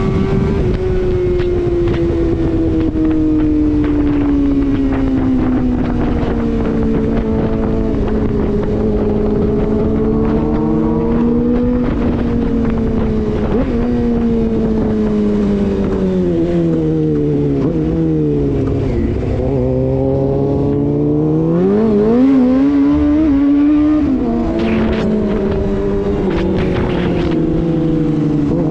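Suzuki GSX-R inline-four engine heard from the rider's seat, its note falling slowly as the bike eases off. About two-thirds through the note dips lowest, then the rider blips the throttle and it rises sharply before settling, and it climbs again near the end. Wind rushes over the microphone throughout.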